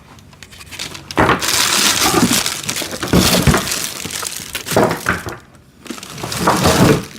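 Plastic packaging crinkling and rustling, with scrapes and knocks, as parts are pulled out of a box, pausing briefly about five seconds in.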